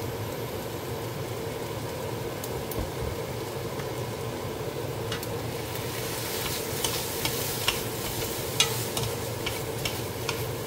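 Sliced shiitake mushrooms and onion frying in a nonstick pan over a steady hum. From about halfway, a wooden spatula stirring them makes a run of light clicks and taps against the pan.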